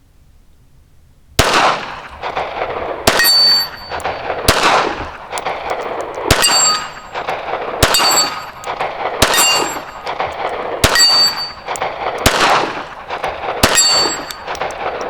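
Ruger Security-380 pistol firing nine shots about a second and a half apart, starting about a second and a half in, each shot echoing. Several shots are followed by the ring of a struck steel plate.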